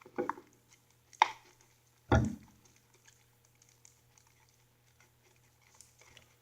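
Slime mixture of glue, shaving gel and contact lens solution being worked in its container: three short squishing, knocking noises in the first two and a half seconds, the third with a dull thump, then only faint small ticks.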